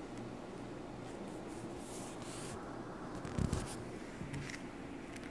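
Faint rustling and handling of a paper tea bag packet, with a soft bump about three and a half seconds in followed by a few light clicks.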